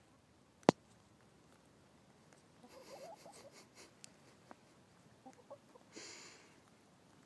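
Hens clucking softly in short low calls, with a sharp tap about a second in and a few soft clicks and a brief scratchy rustle close to the microphone.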